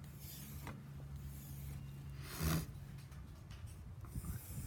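Steel pocket-knife blade drawn across a wet 6000-grit finishing whetstone: a few slow scraping strokes about two seconds apart, the middle one loudest with a light knock.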